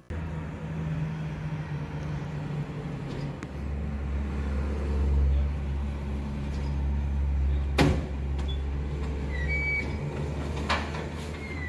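A Garwood rear-loader garbage truck's engine and hydraulics run steadily, heavier from about three and a half seconds in, as the bin lifter raises a large four-wheeled wheelie bin. There is one loud metal clank about two-thirds of the way through, then short squeaks and a lighter knock near the end.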